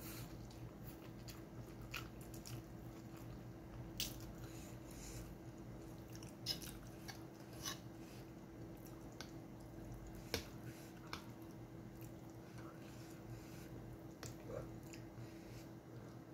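Close mukbang eating sounds: chewing and sucking in mouthfuls of spaghetti, with scattered sharp clicks of a metal fork against the frying pan, the loudest about ten seconds in. A steady faint hum runs underneath.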